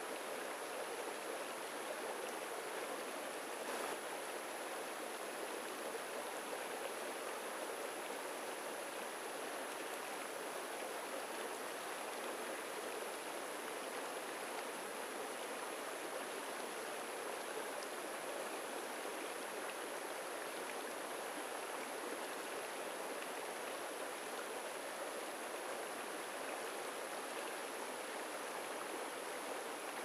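Shallow rocky stream running steadily, water rippling and splashing over stones in a small riffle.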